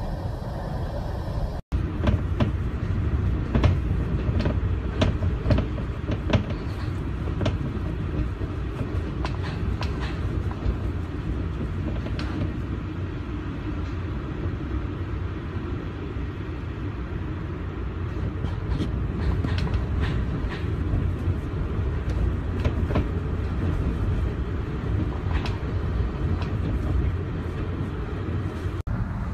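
Hurricane-force wind and driving rain: a steady, deep rumble of wind buffeting the phone's microphone, with scattered sharp ticks and knocks through it.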